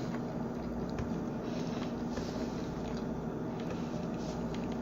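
Steady low background hum with a constant low tone, and a few faint soft ticks over it.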